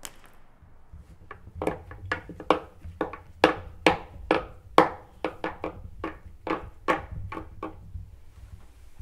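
A wooden string marionette's feet knocking on a hard tabletop surface as it is made to dance: about eighteen sharp, slightly ringing taps at an uneven pace, some much louder than others.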